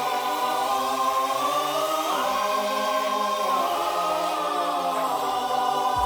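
Background music: a wordless, choir-like chord held and shifting a couple of times, with a deep bass coming in right at the end.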